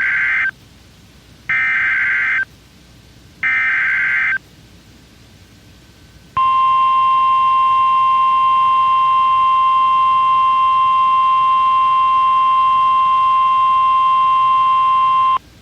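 NOAA Weather Radio emergency alert. Three short SAME header data bursts about two seconds apart, then, after a pause, the steady 1050 Hz warning alarm tone for about nine seconds, which cuts off abruptly. Together they signal an incoming warning, here a flash flood warning.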